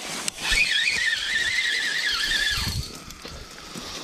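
Spinning reel's drag slipping with a wavering high squeal for about two seconds as a large hooked fish pulls line off, then it dies away.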